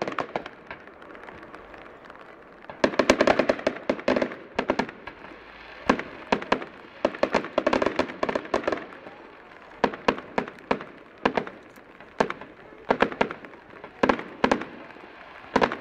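Fireworks going off: sharp cracks and bangs of bursting shells, with a dense run of crackling about three seconds in, then scattered single cracks and short clusters.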